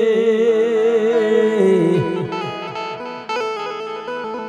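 Instrumental devotional folk music led by a plucked string instrument. A wavering held melody line breaks off about two seconds in, and quieter plucked notes follow.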